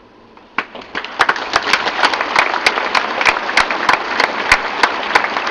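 Theatre audience applauding. The applause breaks out about half a second in and swells to full strength within a second, with many sharp individual claps standing out above the general clapping.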